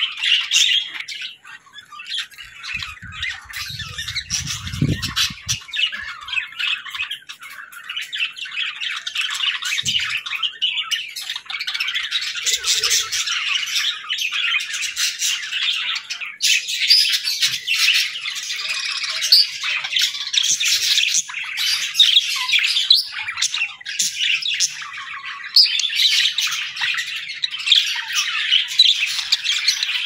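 A flock of budgerigars chattering, with dense overlapping chirps and warbles. There is a brief low rumble about four seconds in.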